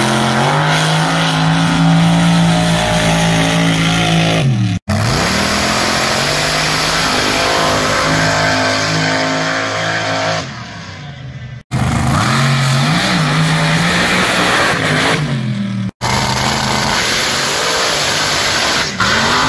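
Sand drag racers on paddle tires running at full throttle down the sand track: loud, high-revving race engines whose pitch holds, drops and climbs again, with a rushing noise of thrown sand. The sound breaks off abruptly three times where separate runs are spliced together.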